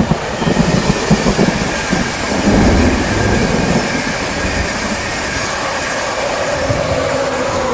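Steady rain with a low, rolling rumble of thunder, loudest in the first few seconds and then settling into a steady roar of rain.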